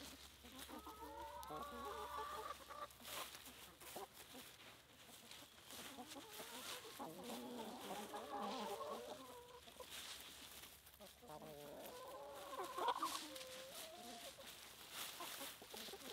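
A flock of chickens clucking in bursts of short, wavering calls, with scattered sharp clicks between them.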